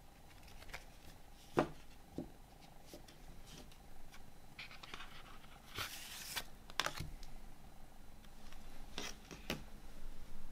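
Handling of a cardboard CD sleeve and disc: scattered taps and clicks, the loudest a sharp tap about a second and a half in, and a short scraping slide about six seconds in as the disc is pulled out of its cardboard pocket.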